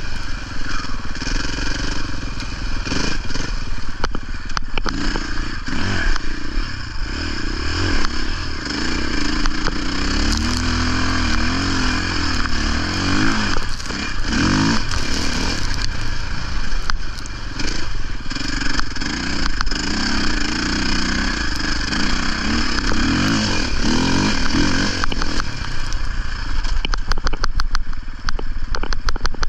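Husqvarna motocross bike's engine running, its revs rising and falling. A quick flurry of clicks and knocks comes near the end.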